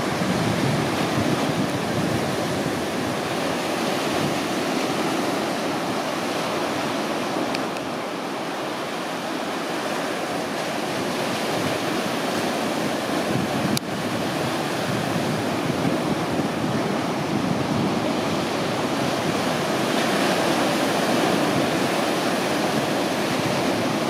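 Ocean surf breaking and washing over shore rocks, a steady rush of foaming water.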